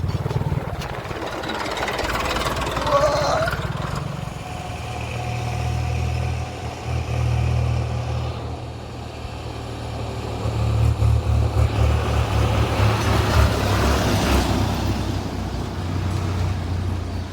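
Heavy diesel machine engine running with a low, steady throb, growing louder for a few seconds from about ten seconds in.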